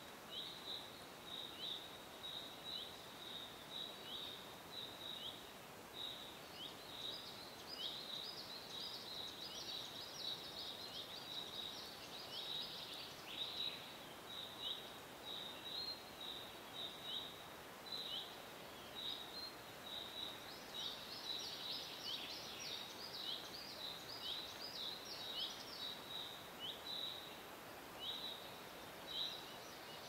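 Forest ambience: birds chirping over a soft steady background hiss. Short, high, falling chirps come about two a second, thickening into busier twittering twice along the way.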